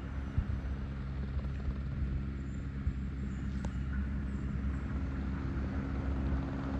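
Helicopter running steadily, a low droning hum that grows slightly louder.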